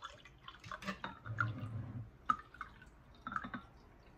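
Flower water poured from a glass bottle into a glass pitcher of water, splashing and dripping unevenly in short spurts.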